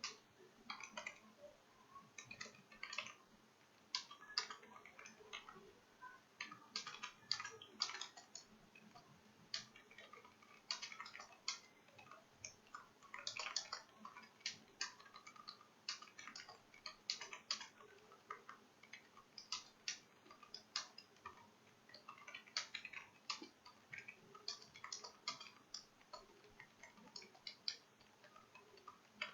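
Computer keyboard typing: faint, quick runs of key clicks with short pauses between them.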